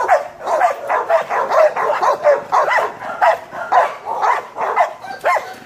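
Dogs in a shelter kennel barking, a fast, unbroken run of short barks at about four a second.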